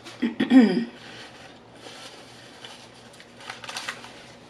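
A brief hum of the voice about half a second in, then light crinkling of paper food wrappers near the end as a burger in its wrapper is handled.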